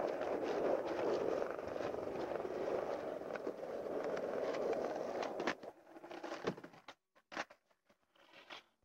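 Skateboard wheels rolling over rough asphalt, a steady gritty rumble that stops about five and a half seconds in. Then come a few sharp clacks of the board hitting the ground, the loudest about seven seconds in, as the skater bails and the board shoots away.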